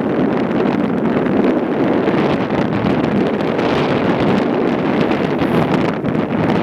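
Strong wind blowing across the microphone: a loud, steady rush with no let-up.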